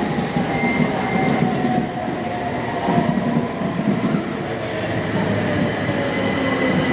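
A train running at a station platform, its whine falling slowly in pitch over steady rolling rumble.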